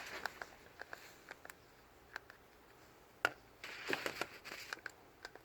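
Faint handling noises of transmission parts being moved about: scattered light clicks and taps, one sharper knock about three seconds in, then a second or so of rustling.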